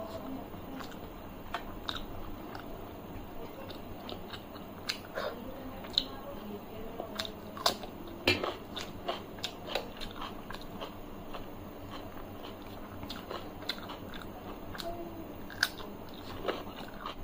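Close-up mouth sounds of a person eating: chewing with many sharp crunchy clicks. They come thickest and loudest near the middle, where a bite is taken.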